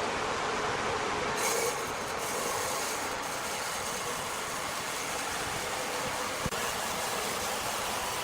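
Steady, dense mechanical noise without a clear engine note, with one short click about six and a half seconds in.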